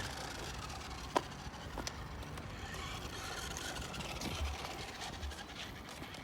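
Child's ride-on toy car being driven: a steady running noise of its small motor and wheels rolling, with one sharp click about a second in.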